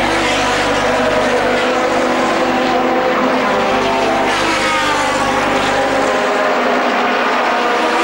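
Open-wheel racing cars running at speed on the circuit, their engines one over another, the pitch dropping as cars go by.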